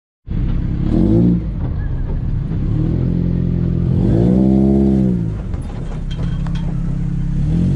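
Off-road buggy engine running under way on a rough dirt track, its pitch rising and falling as the throttle is worked, most plainly about a second in and again from about four to five seconds. A few short rattles and knocks come about six seconds in.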